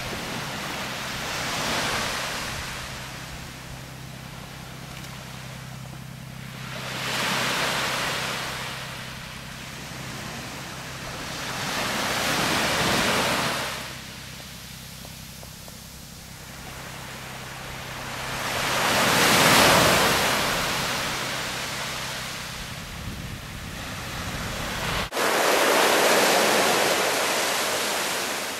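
Small waves washing onto a beach, each one swelling up and falling away, about five in all. A steady low hum runs under them and cuts off abruptly near the end.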